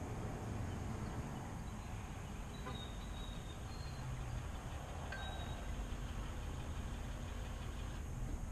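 Steady outdoor background rumble, with a few faint, short high chirps about three and five seconds in.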